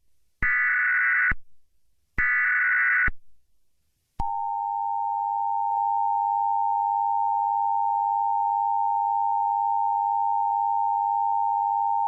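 Emergency Alert System signal: the last two of the three screechy digital SAME header bursts, about a second each with a gap between. About four seconds in, the steady two-tone EAS attention signal starts and holds unchanged.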